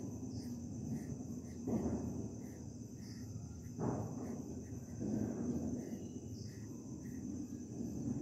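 A few soft pencil strokes scratching on paper while fine lines are drawn. Behind them, insects chirp steadily with a high, even trill.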